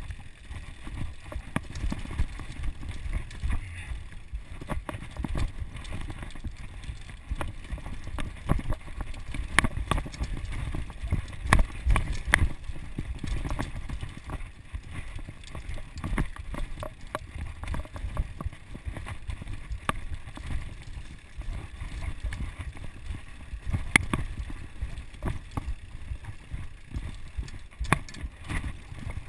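Ellsworth Evolve mountain bike riding fast down a dirt singletrack: a steady low rumble of tyres and wind with frequent clattering knocks and rattles as the bike hits bumps, hardest about twelve seconds in and again near twenty-four seconds.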